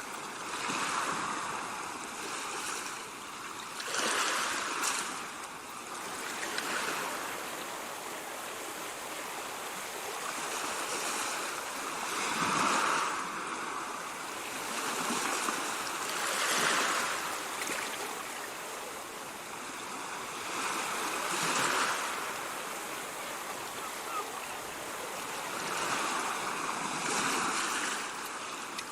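Ocean surf: waves breaking and washing in a steady hiss, swelling and falling back every few seconds.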